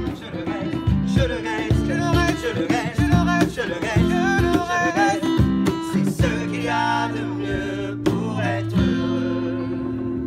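Street band playing a song: an acoustic guitar strummed under a wavering sung melody, with sharp drum beats. The music eases off a little near the end.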